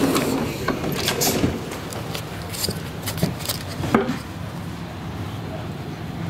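Footsteps, clicks and knocks of a person boarding a passenger train coach and sitting down, the last sharp knock about four seconds in. After that comes a steady low hum inside the standing coach.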